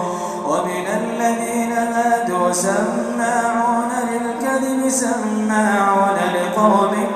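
A male Quran reciter's voice chanting in melodic tajweed style, with long held vowels ornamented by bending, gliding pitch.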